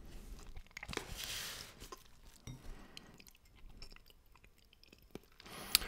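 Soft chewing and mouth sounds close to the microphone, with scattered small clicks, mostly in the first couple of seconds.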